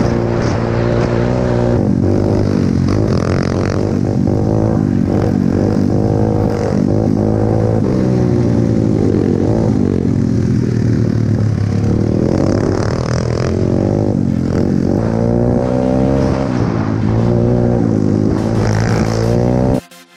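Pit bike engines, single-cylinder four-strokes, running on board while riding a bumpy dirt track, revving up and down with throttle and gear changes. The engine sound cuts off suddenly near the end.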